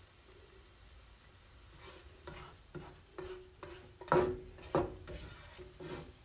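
Silicone spatula scraping and scooping cooked collard greens out of a nonstick frying pan into a small bowl: a series of short scrapes and taps that begins about two seconds in, the loudest two near four and five seconds in.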